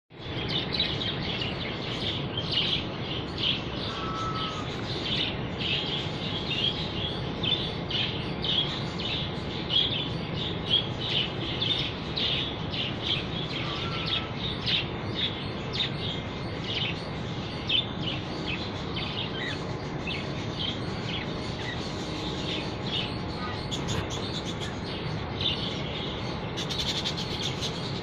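A flock of budgerigars chattering, with many short high chirps and warbles overlapping without a break, over a steady low background noise.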